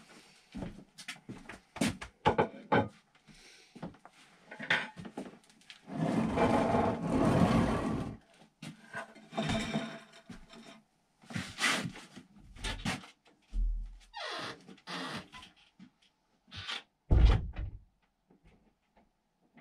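A person moving about a room with a wooden floor: scattered knocks and rubbing, a couple of seconds of rustling, footsteps, then a heavy thump near the end as a door is shut when the person leaves the room.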